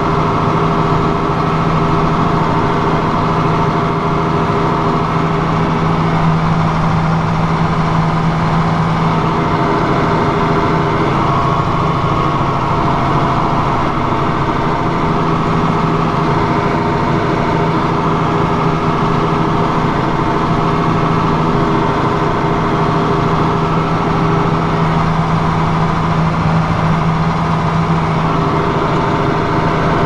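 Ford TW30's turbocharged six-cylinder diesel engine running steadily under load as the tractor pulls a plough, heard from inside the cab.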